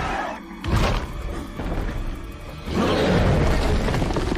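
Film soundtrack of a volcanic blast: dramatic score with a sudden heavy impact under a second in, then from about three seconds a loud, sustained crash of flying rock and debris.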